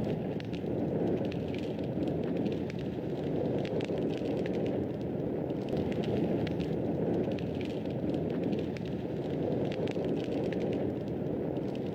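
Fireplace fire crackling, a steady low rush of flame with many small, sharp crackles and pops scattered throughout.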